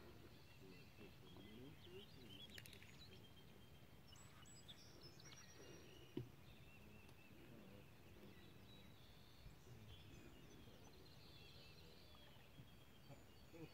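Near silence: faint outdoor ambience with scattered faint bird chirps, and one short click about six seconds in.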